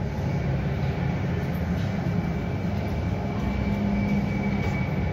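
Steady airport apron noise: a low, even rumble with a faint high whine held over it, typical of jet engines and ground equipment running near the gates.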